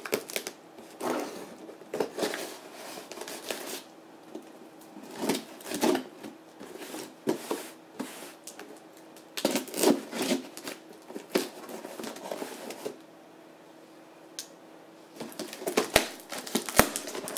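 Folding knife slitting packing tape along the seams of a cardboard box, with tape tearing and cardboard scraping in irregular bursts and a short lull partway through; near the end the flaps are pulled open with a few sharp clicks.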